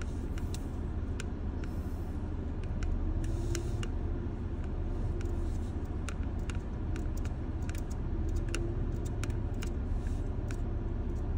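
Car driving over a sandy dirt track, heard from inside the cabin: a steady low rumble of engine and tyres, with scattered light clicks and rattles.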